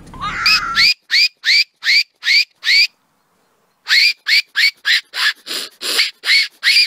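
A fox barking in a rapid series of short calls that each rise in pitch, about three a second, with a pause of nearly a second partway through. In the first second a longer wavering call overlaps the barks and cuts off abruptly.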